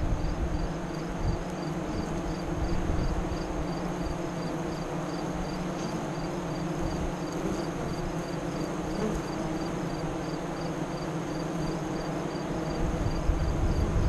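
Honey bees buzzing at the hive entrance, a steady low hum as they crowd the landing board and fly in and out close by. Low rumbles of wind on the microphone come and go, and a faint high pulse repeats a few times a second.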